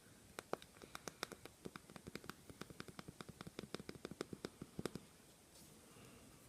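An iPhone home button being pressed over and over in quick succession, about six or seven sharp clicks a second, stopping about five seconds in. The alcohol dabbed onto it is being worked into the button to free up an unresponsive home button.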